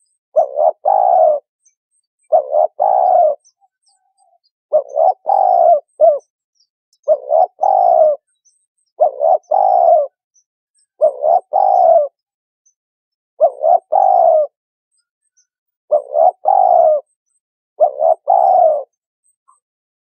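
Spotted dove cooing: its phrased, throaty call repeated about every two seconds, with silence between the calls.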